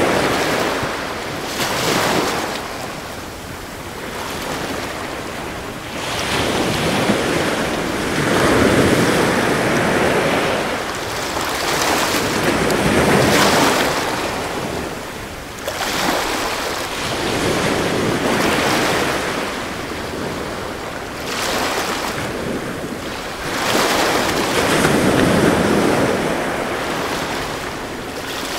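Sea waves washing onto a shore, the surf swelling and fading every few seconds.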